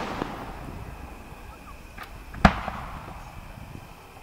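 Aerial fireworks shells bursting: one sharp bang about two and a half seconds in that rolls off in a long echo. The tail of an earlier bang is still dying away at the start, and a few faint pops are heard.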